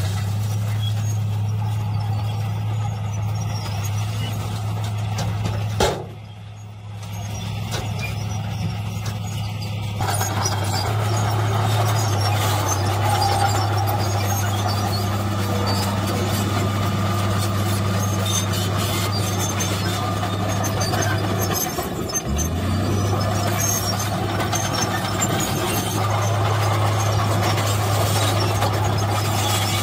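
A dump truck's diesel engine running as it tips soil from its raised bed. After a sudden change about six seconds in, the diesel engine of a Komatsu D53P crawler bulldozer runs steadily under load as it pushes soil with its blade, with a brief dip in the engine note about two-thirds of the way through.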